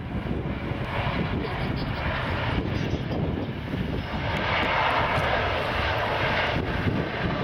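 Jet engines of an Airbus A330-243, Rolls-Royce Trent 700 turbofans, heard as the airliner rolls out along the runway after landing. The engine noise is steady over a low rumble and grows louder about four and a half seconds in.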